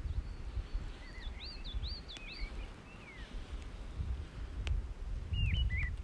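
Wind rumbling on the microphone, with a small songbird giving a run of quick rising-and-falling chirps about a second in and a few more near the end.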